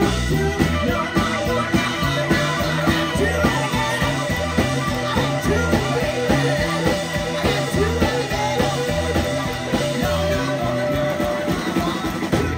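Live blues band playing: a walking electric bass line, drums, electric guitar, harmonica and keyboard, with a woman singing over it.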